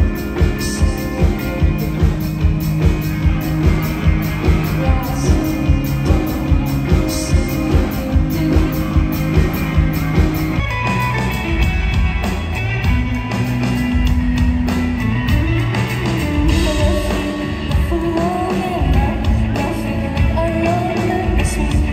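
Live indie rock band playing: electric guitar, drums and a woman singing, heard as recorded from the crowd. The music changes abruptly about eleven seconds in, from a steady beat to a different passage.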